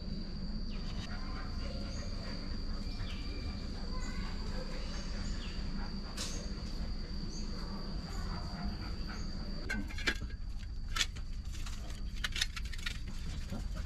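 A steady, high, thin insect trill with a low background rumble. From about ten seconds in come a run of sharp clicks and taps.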